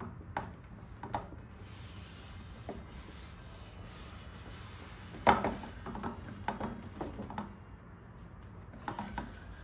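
A cardboard outer sleeve being slid by hand off a large boxed collectible: soft rubbing and scraping of card on card, with scattered light knocks and clicks as the box is handled. The loudest is a sharp knock about five seconds in.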